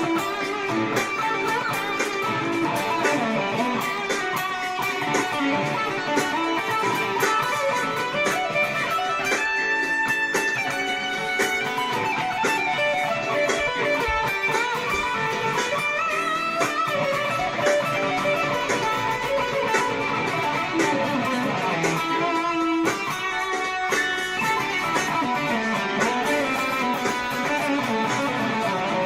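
Electric guitar improvising in E minor through a Boss Power Stack distortion pedal, playing a continuous run of single notes and strummed phrases at a steady level.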